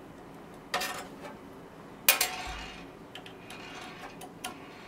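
Metal parts clinking and knocking as a stepper motor and its bar are worked loose from a 3D printer's metal frame: two sharp clacks about a second and a half apart, the second louder, then a few light ticks.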